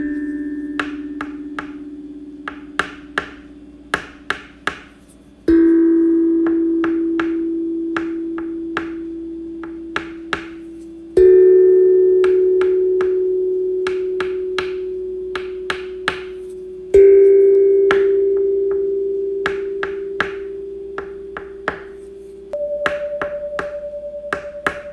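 Bell-like struck tones, one about every six seconds, each ringing out and fading slowly and each a step higher in pitch than the last. Short sharp ticks fall between the strikes, several a second in small clusters.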